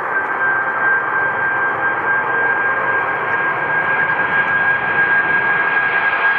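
Wide-body jet airliner's engines running, a loud steady rush of noise with a sustained high whine on top.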